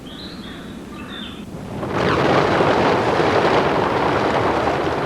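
A few faint bird chirps, then about two seconds in a sudden loud rushing noise that carries on steadily.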